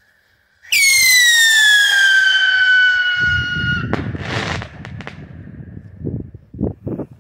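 Whistling firework rocket: a loud whistle that falls steadily in pitch for about three seconds, then the burst about four seconds in with a rumbling echo, and a few sharp pops near the end.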